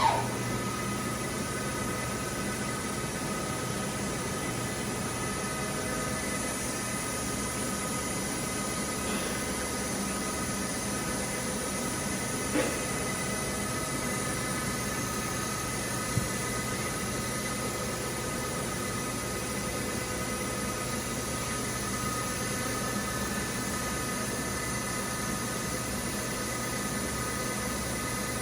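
Steady hum and hiss of machine-shop equipment under power, with several constant tones. Two faint clicks come about halfway through.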